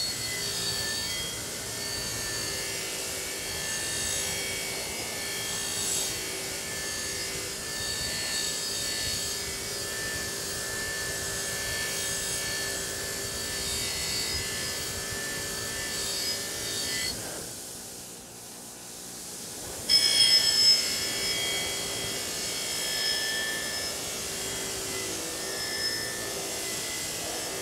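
Bench grinder's wire wheel running with a steady hum while a rusty double bit axe head is pressed against it, a continuous scratchy scrubbing as the rust is stripped off. About 17 seconds in the scrubbing drops away for a few seconds, then comes back with a few loud scrapes.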